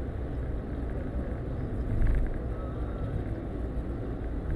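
Road noise of a car driving, heard inside the cabin: a steady rumble of tyres and engine, with a brief louder bump about two seconds in.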